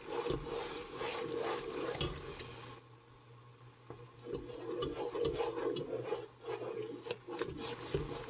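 Wooden spoon stirring and scraping around a metal pot of hot sugar syrup with small clicks and scrapes, as the syrup heats toward the soft-ball stage for fondant. It goes quieter for about a second around three seconds in.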